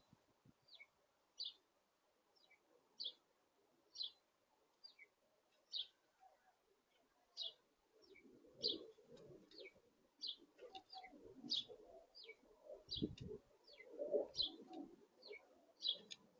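Birds at a feeder: one bird repeats short, high chirps about once a second. From about halfway through, a lower cooing joins in.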